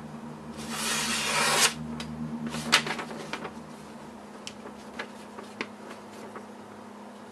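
Knife blade stroked across a sheet of sandpaper, a hissing scrape lasting about a second, then crackling and a few sharp ticks as a sheet of paper is picked up and handled.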